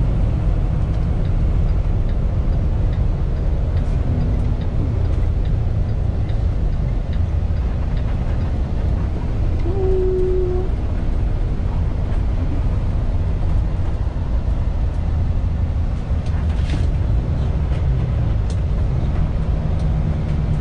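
Kenworth T680 semi truck heard from inside the cab at highway speed: a steady, even rumble of engine and road noise. A short faint tone sounds about halfway through.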